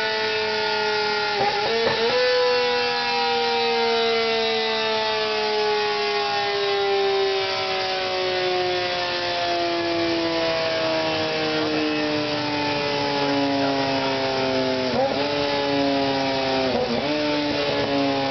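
Yamaha R6 sportbike's 600 cc inline-four running at very high revs on a rear-wheel dynamometer. Its high, steady note slowly falls in pitch, with brief dips and recoveries about two seconds in and twice near the end.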